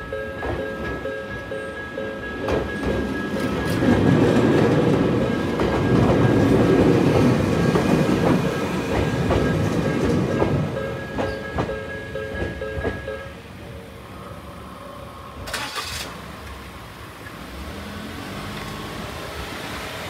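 Japanese level-crossing bell of the low-pitched 'Nikko type', ringing steadily, while a Jōmō Electric Railway train passes over the crossing, loudest from about 4 to 11 seconds in. The bell stops about 13 seconds in.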